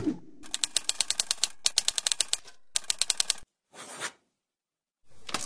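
Typewriter keys clacking in quick keystrokes, about eight a second, in two runs with a brief pause between. A short rasping sound follows near the end of the typing.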